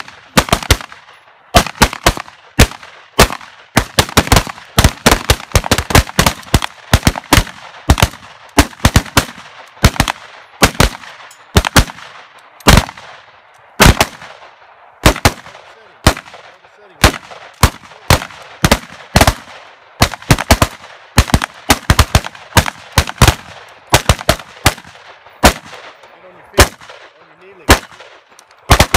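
A line of several AR-15-style rifles firing at once during a shooting drill. Sharp shots come irregularly and overlap, about two to three a second, each with a short echo.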